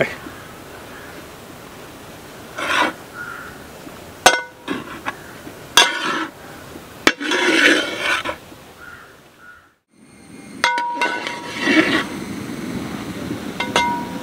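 Metal ladle stirring grated carrot in a large metal cooking pot as the carrot cooks. It makes irregular scraping strokes through the carrot and sharp clinks against the pot that ring briefly.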